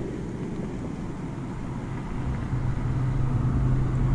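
Steady low engine hum of a motor vehicle, growing louder about two and a half seconds in, over a low rumbling background.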